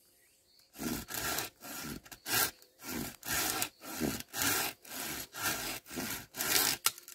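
Hand pruning saw cutting through a green bamboo stalk in steady back-and-forth strokes, about two to three a second. The sawing starts about a second in and stops just before the end.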